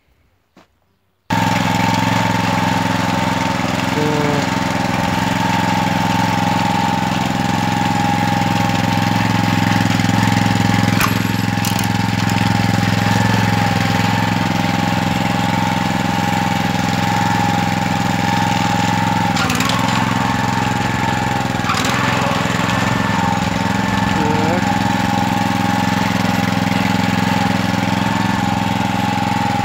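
Single-cylinder 6 hp petrol engine of a walk-behind tractor, coming in abruptly about a second in and then running steadily while the machine is driven along on its wheels, with a few faint clicks.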